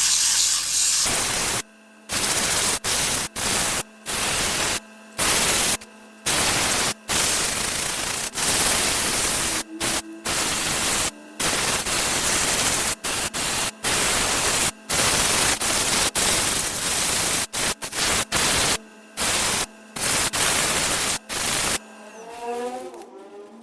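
Loud, steady hissing noise from a woodworking power tool on walnut, with a faint steady hum under it. It cuts off and resumes abruptly a dozen or more times, then fades out near the end.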